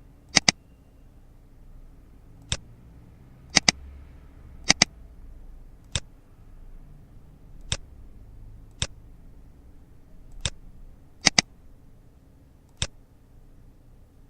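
Computer mouse button clicking about ten times at uneven intervals, several of them quick double-clicks, as folders are picked out in a file dialog.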